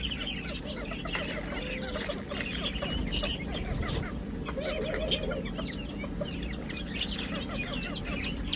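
A flock of young chickens and guinea fowl clucking and cheeping in many short, overlapping calls while they crowd and peck at a corn cob.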